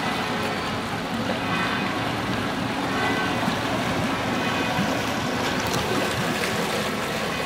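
Water taxi's motor running steadily as the boat manoeuvres close by, its propeller churning and splashing the canal water.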